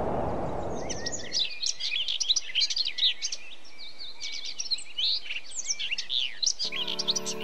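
Many birds chirping and trilling together in quick, overlapping high calls, after a low rushing noise that fades out in the first second or so. Music starts near the end.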